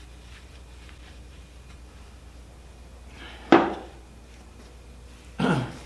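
Gloved hands handling a plastic oil drum: a sharp clunk about three and a half seconds in that rings briefly, then a second shorter thud near the end, with faint handling noise between.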